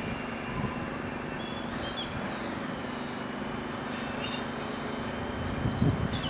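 Diesel engines of a Class 121 'bubble car' single-car railcar running as it pulls away and recedes, a steady drone. A few faint high squeals come through, and a short, louder low rumble sounds shortly before the end.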